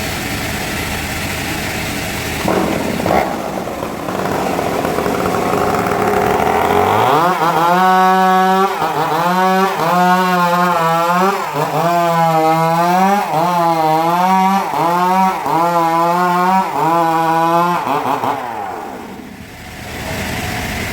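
Sawmill saw cutting a large trembesi (rain tree) log. The machinery runs at first, then from about seven seconds a loud pitched whine wavers up and down about once a second as the blade works through the wood. Near the end it falls in pitch and drops away.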